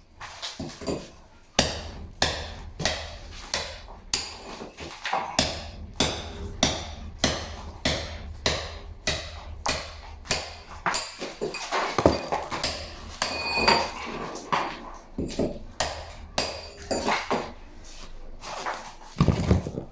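A long run of sharp metallic knocks, like hammer taps on metal, about two a second, some with a short ring. A low steady hum runs underneath through parts of the run.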